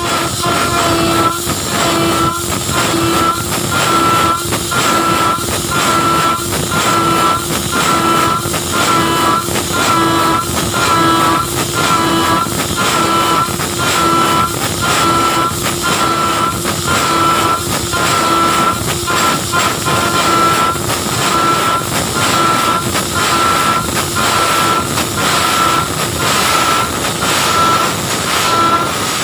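PrintNC CNC machine's spindle and 6 mm single-flute end mill cutting 6061 aluminium: a loud, steady cutting whine with chip noise, pulsing regularly in pitch and level about twice a second.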